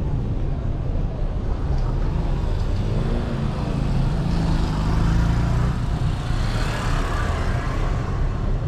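City street traffic: motor vehicles running past, with a steady low rumble. One vehicle passes louder around the middle.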